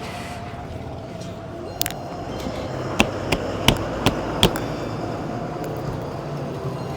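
About six sharp knocks in quick succession, a few seconds in, from tools or metal parts struck during tyre-fitting work. A steady low background hum runs under them.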